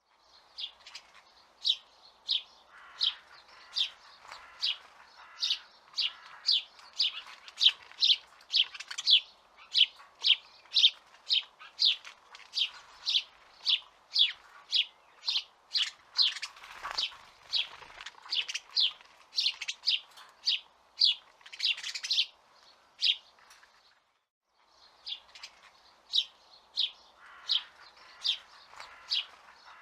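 Small songbird chirping: a steady run of short, high, repeated chirps, about two to three a second, broken by a brief silence a little after the 24-second mark.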